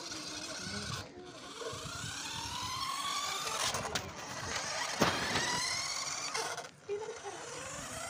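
Small electric motors and plastic gearboxes of toy remote-control monster trucks whining, the pitch rising and falling as they speed up and slow down. A single sharp knock comes about five seconds in.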